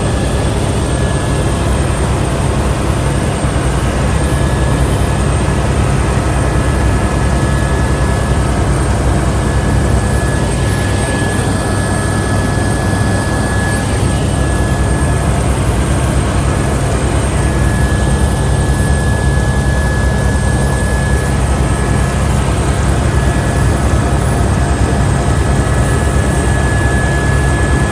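Helicopter heard from inside the cabin: a loud, steady rotor and engine drone with a constant high-pitched whine over it.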